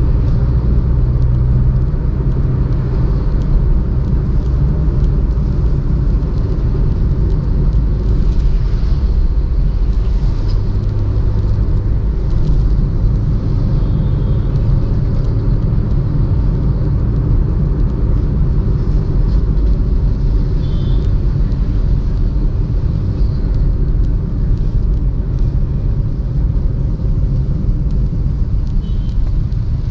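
Steady low engine hum and road rumble of a car driving in light traffic, with the engine note shifting a little now and then.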